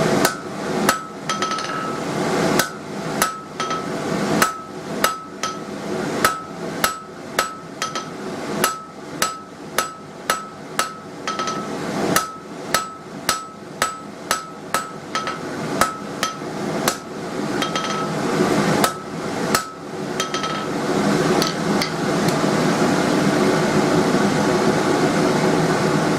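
Hand hammer striking a hot square steel bar on an anvil while forging a chisel point: a run of blows, roughly one or two a second and irregularly spaced, each with a short bright ring. The hammering stops about 21 seconds in, leaving a steady rushing noise that runs underneath throughout and grows a little louder near the end.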